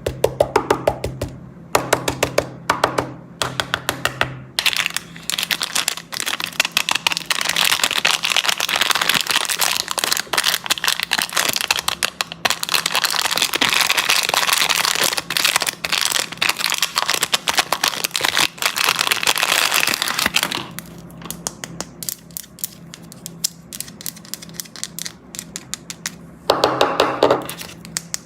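Crinkling plastic candy wrappers and packaging handled at close range, with a thick stretch of crackling in the middle and bursts of clicks and taps from candies knocking together near the start and the end.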